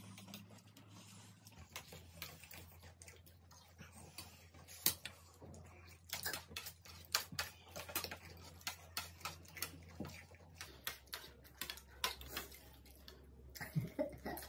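Close-up eating sounds of people eating instant noodles: a run of irregular short clicks and smacks from chewing and forks on plates, busier from about six seconds in.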